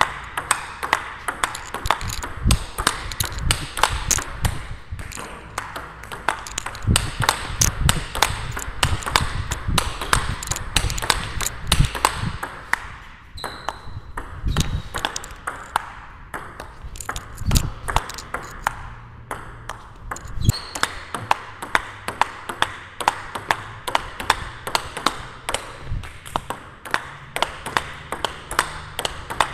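Table tennis rally: a celluloid-type ball clicking off rackets and the table several times a second, the rackets faced with Nittaku Genextion rubber. Occasional low thuds run under the clicks in the first two-thirds.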